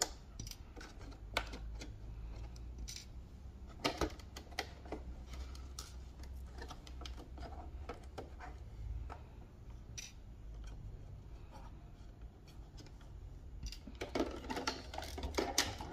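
Scattered light clicks and taps of a plastic-bodied RC lowrider car being handled and turned over in the hands, with a denser run of clicks and rattles near the end, over a steady low hum.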